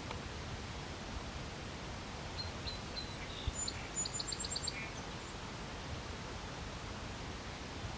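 A small bird gives a short burst of high chirps midway through, ending in a quick run of about six notes, over a steady outdoor background hiss. A single soft low thump comes just before the chirps.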